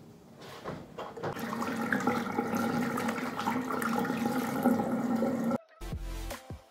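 Water running steadily from a bathroom sink tap for face rinsing. Near the end it cuts off suddenly and background music comes in.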